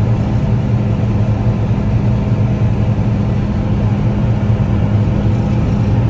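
John Deere combine harvester running while cutting wheat, heard from inside the cab: a steady, loud machine drone with a constant low hum.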